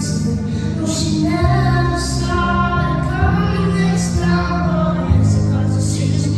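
A woman singing a pop song over live accompaniment with bass and a steady beat.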